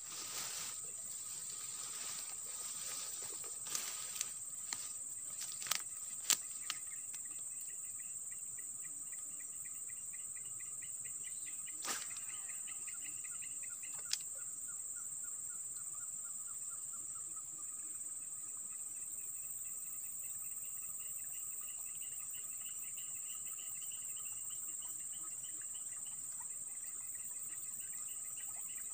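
Steady high-pitched drone of an insect chorus, with pulsing trills lower down. A few short sharp clicks are scattered through the first half.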